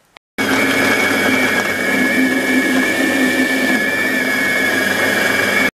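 Monsieur Cuisine Edition Plus kitchen machine's blade motor running at speed, chopping roasted pumpkin with a steady whine. It starts about half a second in and stops suddenly.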